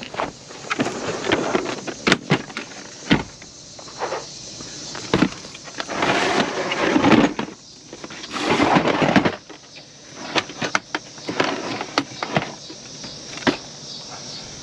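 Clattering and rustling of small parts and containers being handled and rummaged through, with sharp knocks and clicks and a few longer scraping stretches.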